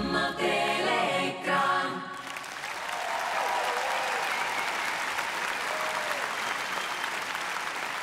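A live pop band's song ends on its final chord about two seconds in. The audience then applauds steadily, with a few voices calling out over the clapping.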